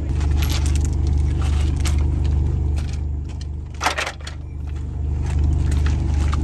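Light clicking and rattling of folding wooden camp furniture frames being handled, with one louder clatter about four seconds in, over a steady low hum.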